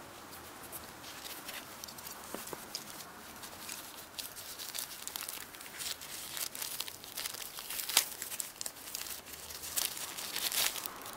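Paper wrapping rustling and crinkling in the hands as an adhesive camera mount is unwrapped and the backing on its sticky pad is peeled, with a run of sharp crackles that grows busier. The loudest crackle comes about eight seconds in, with another burst just before eleven.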